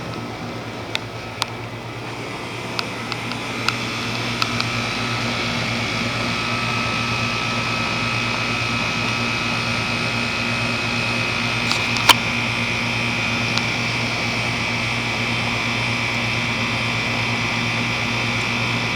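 2004 Goodman 3.5-ton heat pump running steadily, a compressor hum with its outdoor fan, back in heating after a short defrost cycle. It grows a little louder over the first few seconds, and a few sharp ticks come in the first five seconds and once more about twelve seconds in.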